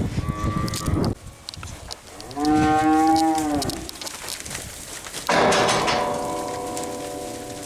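Dairy cows mooing: three long moos. The middle one rises and falls in pitch, and the last one is drawn out and slowly fades.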